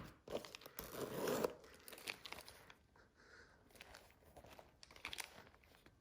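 Rustling and crinkling as a small coated-canvas handbag is handled, loudest about a second in, then lighter scattered rubs and clicks.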